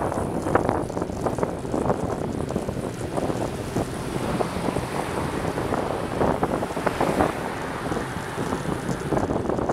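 Wind buffeting the microphone of a camera on a moving bicycle, a steady rush of noise with irregular gusts.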